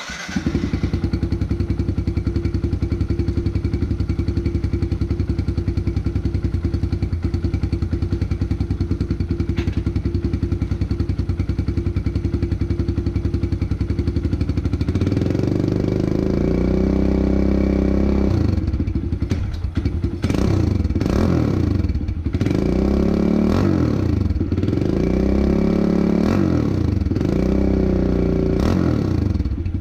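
Kawasaki KLX110L's small single-cylinder four-stroke engine running through a Yoshimura RS2 full exhaust system. It idles steadily for about fifteen seconds, then is revved again and again: several quick blips, followed by longer revs that rise and fall.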